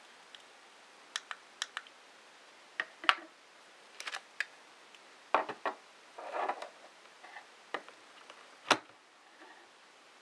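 Hard plastic clicks and knocks of small radio flash trigger receivers being handled and set down on a table, irregular and scattered, with a short rustle about six seconds in and the loudest knock near the end.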